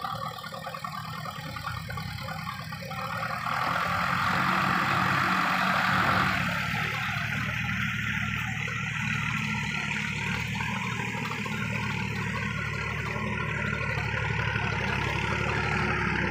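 Belarus tractor's diesel engine running. It grows louder about three seconds in, then settles to a steady idle.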